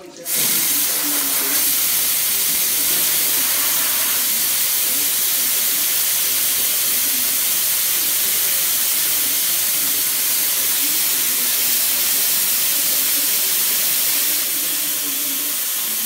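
Steam wands of a CMA Lisa commercial espresso machine blowing steam freely into the air with a loud, steady hiss, the valves opened fully. The hiss starts just after the beginning and eases slightly near the end as a valve is turned back.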